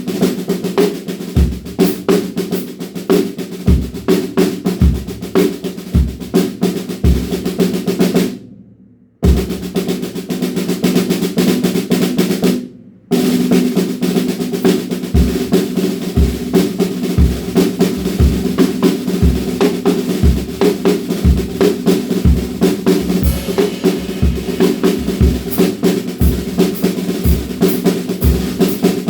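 Drum kit played without a break: rapid snare strokes and rolls with the snare wires just loosened, over a steady bass drum pulse that picks up pace about halfway through. The playing stops for under a second twice, at about 8 and 13 seconds.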